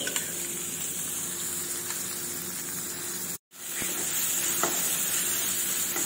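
Chopped tomatoes sizzling in hot ghee in a kadhai. After a split-second drop-out just past halfway, a metal spatula scrapes and stirs them against the pan.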